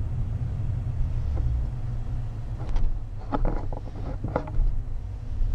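Steady low road and engine rumble heard inside the cabin of a slowly moving vehicle, with a few short knocks or rattles about halfway through.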